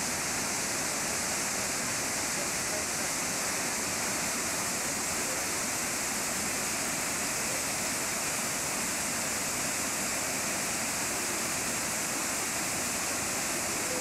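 Manavgat Waterfall's water pouring over rocks into a pool: a steady rushing that does not let up.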